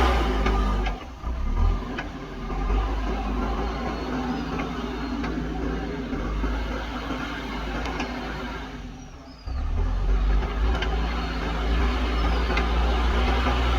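Diesel engine of a JCB backhoe loader running under working load, a steady low rumble. It drops away briefly about a second in, and fades lower about two-thirds of the way through before coming straight back up.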